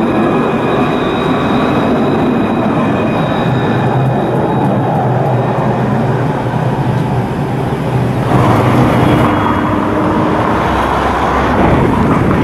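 Alstom Citadis electric tram running close past a tram-stop platform, with a steady high whine over a low rumble. About eight seconds in, a louder rushing noise sets in for a few seconds before easing off.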